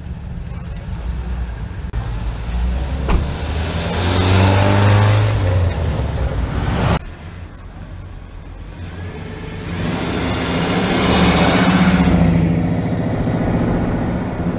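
Two cars drive past close by, each engine and its tyre noise swelling as it nears and fading as it goes. The first pass breaks off suddenly about seven seconds in, and the second is loudest near the end.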